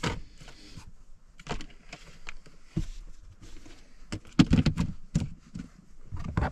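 A clear plastic storage bin and its lid being handled: irregular light knocks, clatters and rustles, busiest about four and a half seconds in, with another knock near the end.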